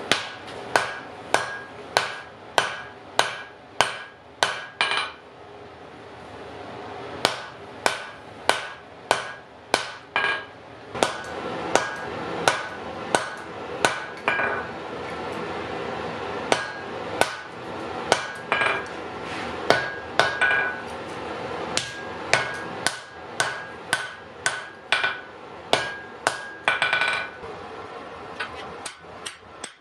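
Blacksmith's hammer striking a glowing iron axe blank on an anvil during forging, about two blows a second, each with a bright metallic ring from the anvil. The blows stop for about two seconds after five seconds in, then carry on at the same pace.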